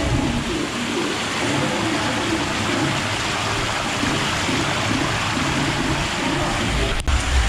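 Water gushing steadily from a feed pipe into the start tub of an enclosed tube water slide, a continuous rush. The sound breaks off briefly near the end, and a deeper rumble follows as the rider slides inside the tube.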